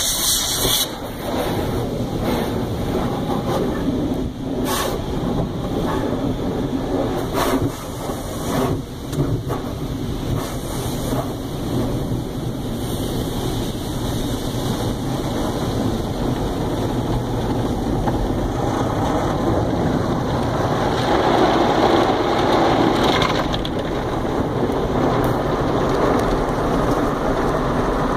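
Automatic car wash's water jets and soapy spray pelting the car, heard from inside the cabin as a steady rain-like rush. There are a few knocks about five to nine seconds in, and the rush grows louder for a couple of seconds a little over twenty seconds in.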